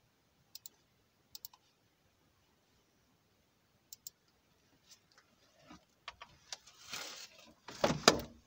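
A few isolated sharp clicks of a laptop's keys or touchpad as it is being shut down, with near silence between. From about five seconds in, scattered knocks and rustling of things being handled, loudest near the end.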